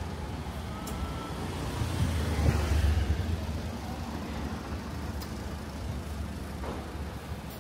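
City street traffic: a car drives past close by, its engine and tyre rumble swelling to a peak about two to three seconds in, then fading back to a steady traffic hum.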